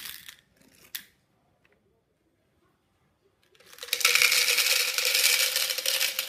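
Hard-shelled M&M candies poured from a small plastic cup into an empty plastic single-serve blender cup, a dense, loud rattling clatter of candies hitting the bottom and each other, starting about four seconds in. Before it, the tail of a pour from the bag into the small cup dies away at the start, followed by a single click and a few seconds of near silence.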